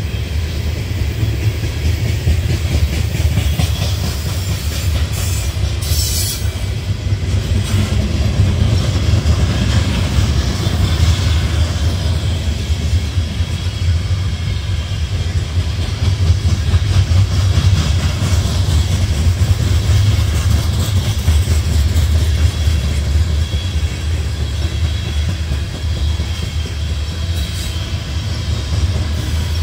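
Loaded CSX coal hopper cars rolling past at close range: a steady, heavy low rumble of steel wheels on the rails. A brief high hiss about six seconds in.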